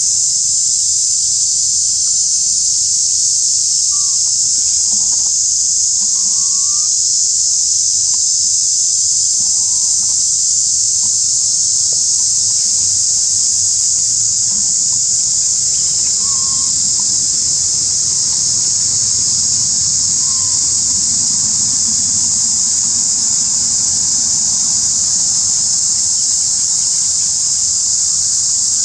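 Steady high-pitched insect chorus droning without a break, with a few faint short chirps scattered through it.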